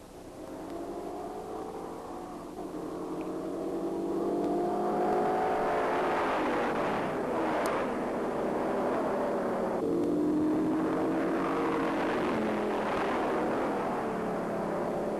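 Several big-block V8 muscle cars accelerating hard together from a rolling start, growing louder over the first few seconds. Their engine pitch climbs, drops back and climbs again several times as the four-speeds shift up.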